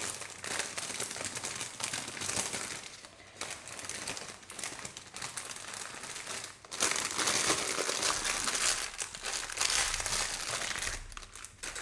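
Plastic bags of diamond-painting drills being handled and crinkled, with a louder stretch of rustling from a little past the middle until near the end.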